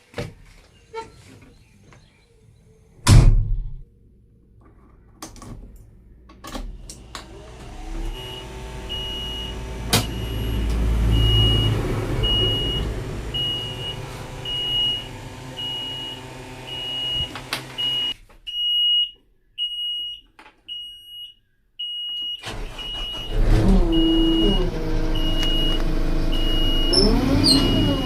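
Backhoe loader's diesel engine running and revving, with an electronic reversing alarm beeping evenly about one and a half times a second through the middle stretch. There is a sharp knock a few seconds in, and the engine pitch drops near the end.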